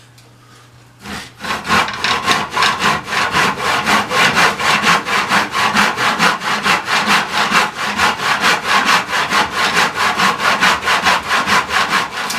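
Hand saw cutting through a wooden board: rapid, even back-and-forth strokes starting about a second in.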